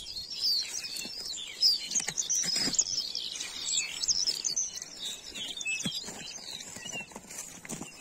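Small songbirds twittering and singing continuously in many overlapping high chirps and trills, with a few crunching footsteps on stubble and crusted snow.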